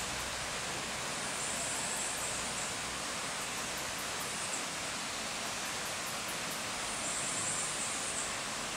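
Steady, even hiss of outdoor forest ambience with no distinct source. Two high-pitched buzzes of about a second each sound over it, one about a second and a half in and one near the end.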